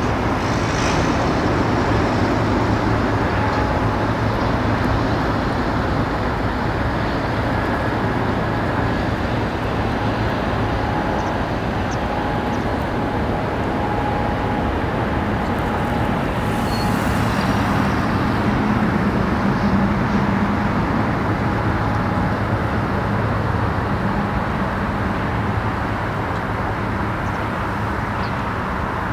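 Steady low engine rumble with a constant hum, holding level without a clear rise or fall.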